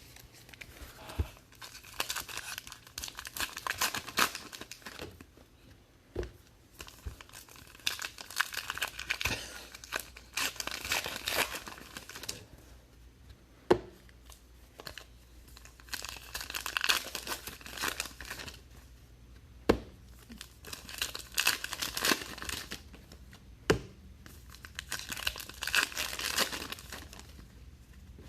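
Foil trading-card pack wrappers being torn open and crinkled in repeated stretches, with a few sharp single clicks as cards are handled.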